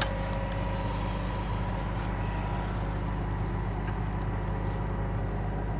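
A Case IH combine's engine running with a steady hum while the machine stands still, its header feeder drum stopped by a broken drive chain. A brief click comes right at the start.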